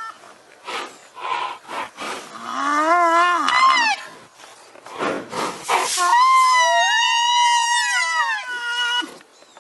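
Rhinoceros giving high-pitched squealing calls: a shorter call that rises and falls, then a longer, higher call held for about three seconds, with breathy puffs of air between them.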